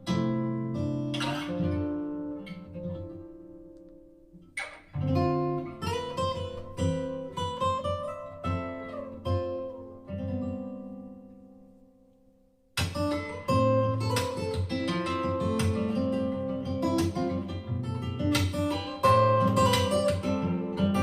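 Acoustic guitar music played at maximum volume through a Doss Soundbox XL Bluetooth speaker, with distortion called very noticeable. It dies away almost to nothing about twelve seconds in, then comes back loud all at once.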